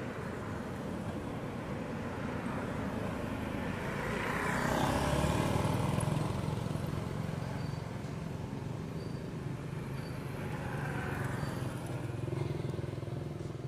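Road traffic: motor vehicles driving past on an asphalt road, a steady engine hum that swells to its loudest about five seconds in as one vehicle passes, and rises again near the end as another goes by.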